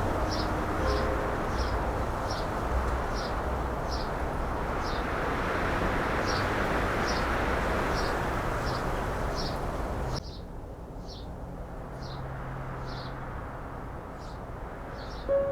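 Wind blowing across the microphone, a steady rushing that cuts off abruptly about ten seconds in, leaving a quieter low hum. Through it all a bird gives a short high chirp about twice a second.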